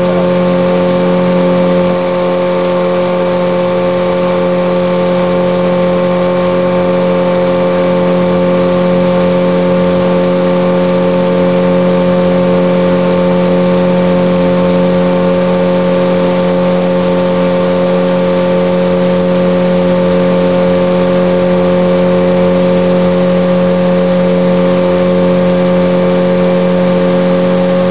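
Boat's outboard motor running at a steady speed, one even drone that holds its pitch throughout.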